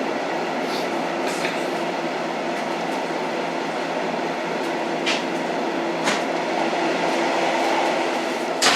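An old train running, a steady rumble with a faint steady hum, broken by a few sharp metallic clicks and knocks, the loudest near the end.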